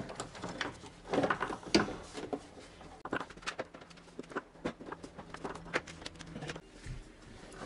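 Irregular plastic knocks, clicks and rattles as a Honda Civic's plastic air intake resonator is worked loose and lifted out of the engine bay.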